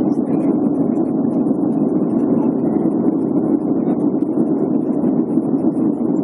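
Airliner cabin noise in flight: the steady, even rush of the engines and airflow heard from inside the cabin.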